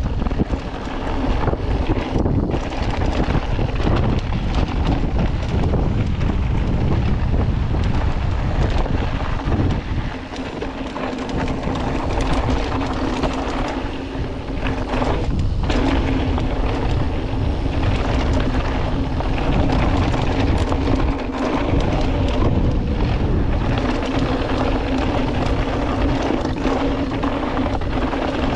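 Rushing wind buffeting a GoPro's microphone during a fast downhill mountain-bike descent, with tyre and trail noise mixed in. A faint steady hum joins in and drops out several times in the second half.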